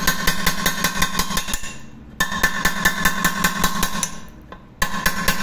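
A hammer taps rapidly on a cold chisel against the rivets of an old Marmicoc pressure cooker's handle bracket, about six or seven blows a second, and the metal pot rings with each blow. The tapping comes in three runs with two short pauses. The rivets are being cut through to take off the broken handle.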